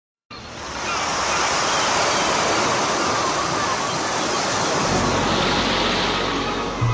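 Ocean surf washing on a beach, a steady rushing wash that starts suddenly just after the beginning; a low steady drone comes in under it about five seconds in.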